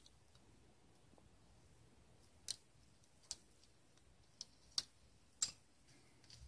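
Five small, sharp clicks from the second half onward as a Mitsubishi FAST key fob's plastic casing and coin-cell battery are handled during a battery change.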